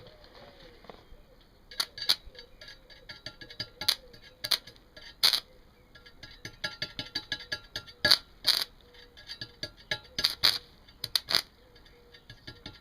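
Welding rod being struck against steel over and over on a car-battery welding setup powered by two car batteries through jump leads. It gives irregular sharp crackles and taps as the arc spits and fails to hold: not enough power to keep an arc going with the smaller electrodes.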